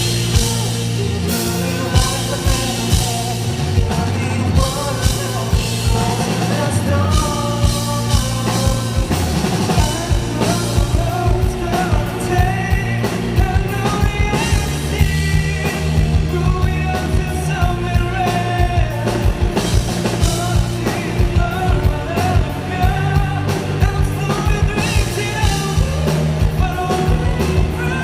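Live rock band with a singer over drum kit, bass and synthesizer, playing a song with a steady beat of about two strong hits a second.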